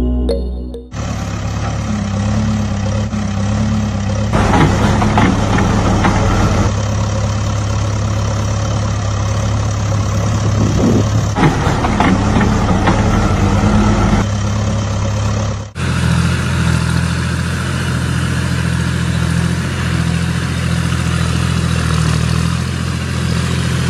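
Heavy diesel engine running steadily, with two rougher, louder spells like revving; about 16 s in it cuts abruptly to another steady engine sound.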